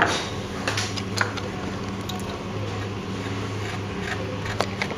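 A steady low hum, with a few faint, scattered ticks and light scratching, as of a hand graver working the surface of a shell cameo.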